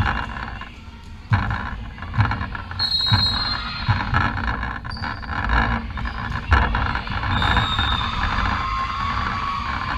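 Indoor volleyball play on a hardwood court: sharp thuds of the ball being struck, roughly once a second, and high squeaks of shoes on the floor, twice, in a reverberant hall.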